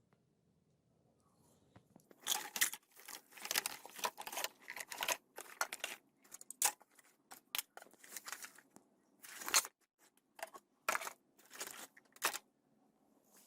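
Irregular bursts of crackling and scraping as the old Nokia 1110's plastic parts are worked by hand, starting about two seconds in and stopping near the end.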